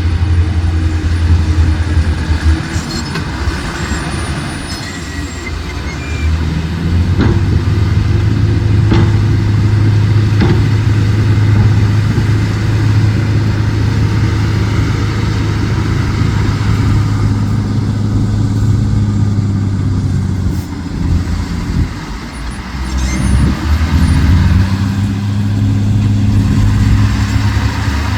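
Heavy diesel engine of earthmoving machinery running steadily under load, with a few sharp knocks in the first half; about two-thirds of the way through the engine drops off briefly and then picks up again.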